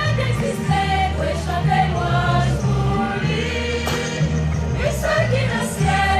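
A group singing a hymn over music with a held, stepping bass line.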